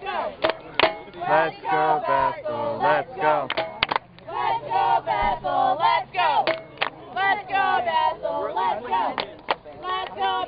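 Many voices talking and calling out at once, a sideline crowd of spectators chattering, with a few sharp clicks mixed in.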